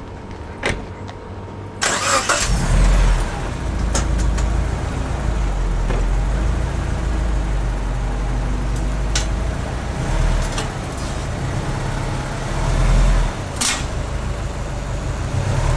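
Subaru Forester XT's turbocharged 2.5-litre flat-four engine starting about two seconds in and then running at idle, its level swelling briefly twice, with a few scattered clicks.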